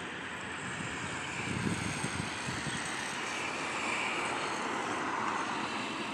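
Steady outdoor rumble and hiss of vehicle noise, with a low swell about a second and a half in.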